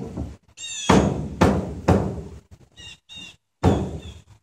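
Several loud thuds about half a second apart, then one more a little later, with a few short high-pitched squeaks among them.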